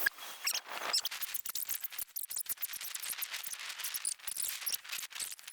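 Audio of a tornado recording sped up so far that its wind and voices have become a dense clatter of rapid high-pitched clicks and squeaks.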